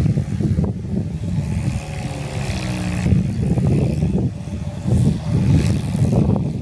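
Sonalika Gardentrac compact tractor's diesel engine running steadily under load while its rear rotary tiller works wet, muddy ground, with an uneven, rough surging over the engine's drone.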